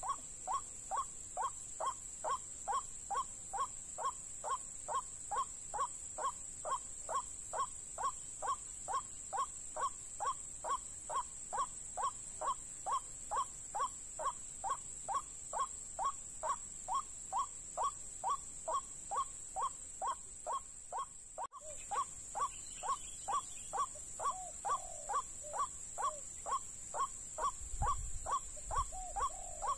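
White-breasted waterhen (ruak-ruak) call repeated evenly about twice a second in a steady, unbroken rhythm, over a steady high hiss. The calling drops out for a moment about two-thirds through and then goes on, with a few low thumps near the end.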